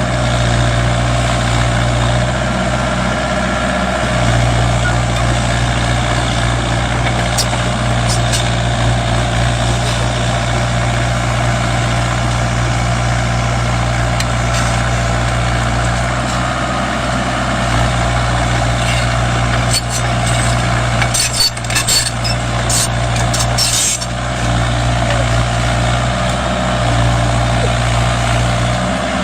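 Mini Kubota excavator's diesel engine running steadily while digging, its low hum rising and easing every few seconds with the load. Sharp clicks and knocks come in a cluster about twenty seconds in.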